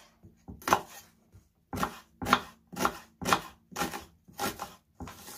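Knife chopping an onion into small dice on a wooden cutting board: a series of sharp knocks, about two a second, starting just under a second in.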